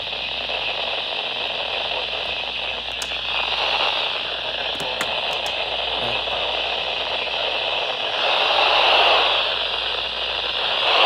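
Radio static: a steady hiss from a radio receiver with no broadcast voice on it, swelling louder a couple of times, with a few faint clicks.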